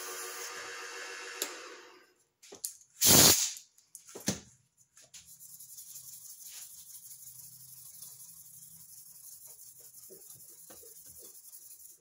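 Small wood lathe running while a Bubinga pen blank is sanded at its last grit, then winding down and stopping about two seconds in. About a second later come one short loud burst and a smaller one, then a faint steady hiss.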